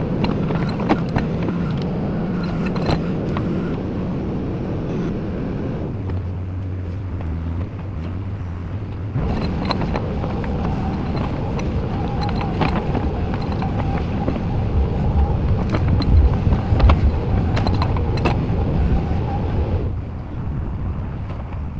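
JCB 4CX backhoe loader's diesel engine running under changing load while digging, its note shifting a few times and easing near the end. A steady whine rides over it through the middle, with occasional sharp knocks.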